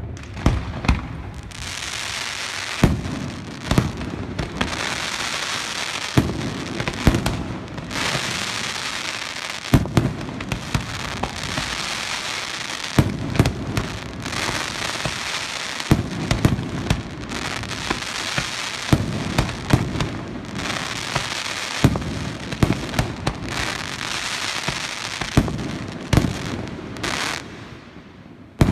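Aerial fireworks display: shells bursting with sharp, irregular bangs, often several a second, over a continuous crackling of burning stars.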